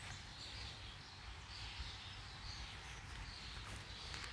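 Faint outdoor ambience: a bird giving short high chirps about once a second, over a low steady rumble.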